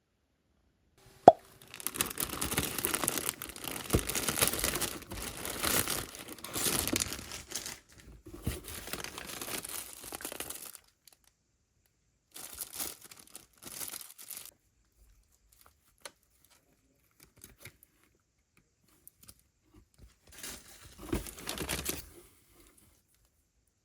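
Parcel packaging being torn and crinkled open by hand, in several long bursts of tearing and rustling with quiet pauses between. A sharp click comes about a second in.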